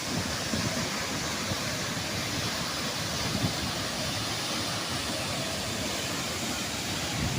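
Waterfall's falling water rushing in a steady, even roar.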